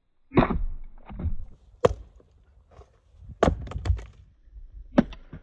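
Estwing Fireside Friend splitting axe striking firewood rounds, several sharp chopping strikes a second or two apart, with the wood cracking and splitting.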